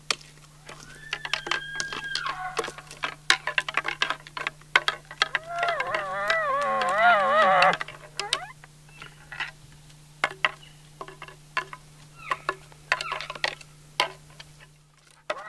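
Bull elk bugling: a high whistle about a second in that drops in pitch, followed by series of rapid grunting chuckles. Midway a hunter answers through a ribbed bugle tube with a warbling call, after which the chuckling clicks continue.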